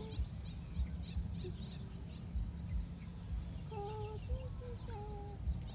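Birds calling: faint high chirps and, in the second half, a few short pitched calls, over a steady low rumble with irregular thumps.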